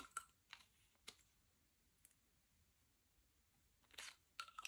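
A few faint, sharp clicks spread out with a quiet gap in the middle: a small cluster at the start, a single click about a second in, and another cluster near the end.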